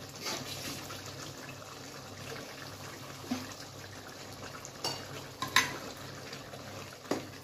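Curry simmering in an aluminium pot, with a few sharp clinks of a spoon against the pot as ground masala paste is added and stirred in.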